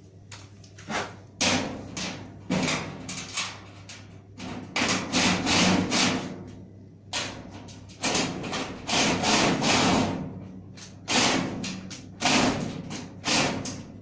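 Sheet-steel panels of a spray booth being handled and fitted together by hand: a run of irregular knocks and thuds with longer stretches of metal rattling and scraping.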